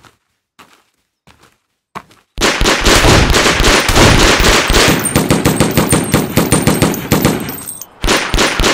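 Battlefield gunfire sound effects: after a few faint clicks, a dense barrage of rapid machine-gun and rifle fire breaks out about two seconds in. It eases off briefly near the end and then starts again.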